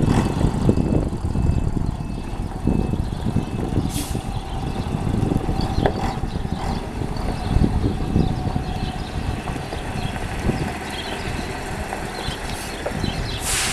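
Volvo B58 bus's six-cylinder diesel engine running with a low, uneven rumble, with two short air hisses, one about four seconds in and one near the end.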